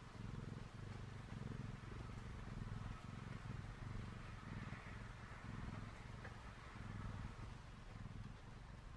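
A dozing tabby cat purring, a low steady rumble that swells and dips about once a second with its breathing.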